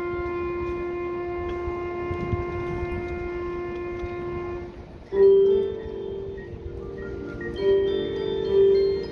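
High school marching band music: one long held note fades out about four and a half seconds in. A new passage of several pitched notes then starts suddenly and swells twice near the end.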